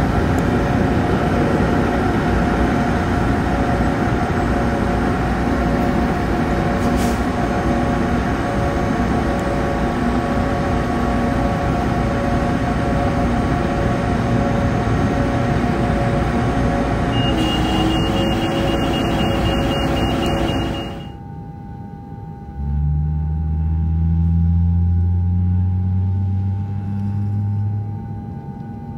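Aircraft tug towing an Airbus A320: a loud, steady engine drone with a held whine, and a rapid high beeping for a couple of seconds near the middle. The noise cuts off suddenly about three quarters of the way in, and a quieter steady hum with low rising tones follows.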